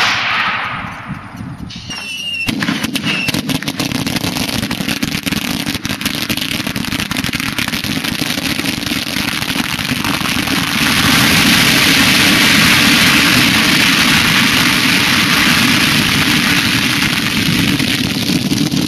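A loud firework blast fading over a second or two, then a long dense barrage of firecrackers and exploding fireworks, a continuous crackling and banging that grows louder about halfway through.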